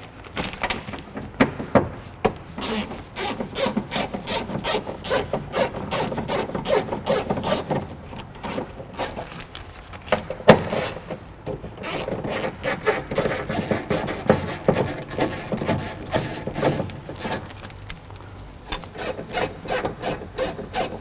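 Hand ratchet and socket clicking in quick runs as the 10 mm bolts holding the window regulator and motor are backed out of the door's inner panel. There are a couple of short pauses and one sharper knock about halfway through.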